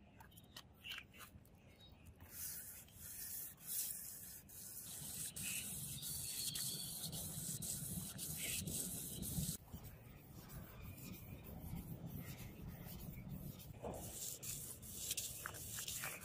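Sandpaper on a wooden block rubbed back and forth along the groove (fuller) of a steel katana blade, a scratchy hiss of repeated strokes. It is louder in the first half and drops to softer, more broken strokes about ten seconds in.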